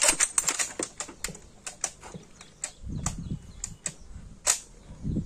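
Honour guard's rifle bolts being worked between salute volleys: a run of irregular sharp metallic clicks, thick during the first second and thinning out after.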